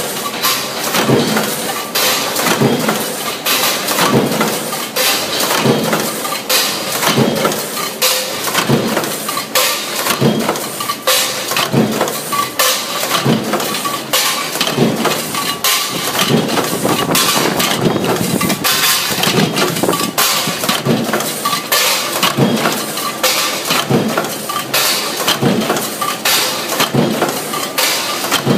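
Junction box production machine running, with a knock just over once a second over a constant clatter and clinking of machine parts.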